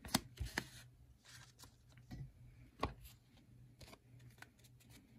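Trading cards being handled on a tabletop: a few sharp taps and light card rustles, two taps near the start and a louder one about three seconds in, over a faint low hum.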